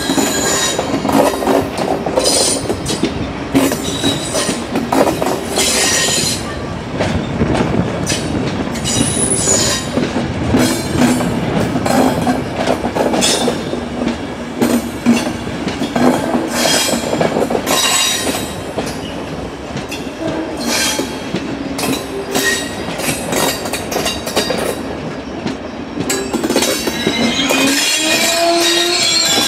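A train of railway coaches rolling past slowly, wheels squealing on the rails and clacking over the rail joints, with rising tones near the end.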